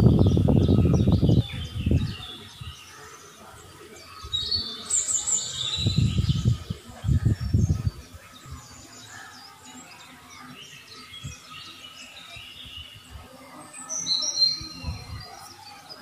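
Small birds chirping and calling in short, high bursts, clearest about five seconds in and again near the end. Bursts of low rumbling noise on the microphone, loudest in the first second and a half, come and go under the birdsong.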